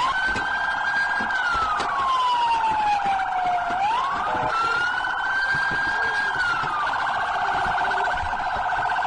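Electronic police car siren sounding continuously: a slow wail that rises, holds and falls twice, over a fast warbling yelp that runs throughout.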